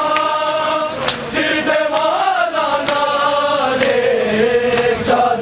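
A crowd of men chanting a noha in unison with long, slowly gliding held notes, punctuated by sharp slaps of matam, hands striking bare chests, about once a second.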